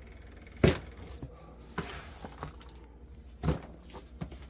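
A few separate sharp knocks and clinks of a kitchen utensil and container being handled while the seasoned fish is moved into the container. The loudest comes less than a second in.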